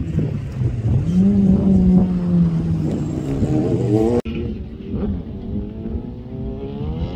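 Rally car engines revving and accelerating. One climbs in pitch over the first four seconds and cuts off suddenly. A quieter engine follows and rises in pitch again near the end.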